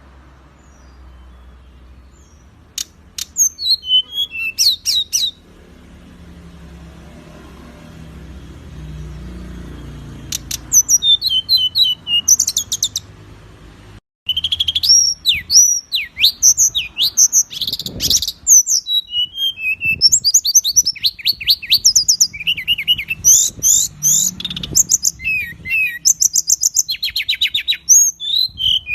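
Songbird singing a loud, fast masteran song of rapid chattering trills and sharp whistled slurs, in scattered bursts during the first half and then almost without a break after a brief cut about halfway through.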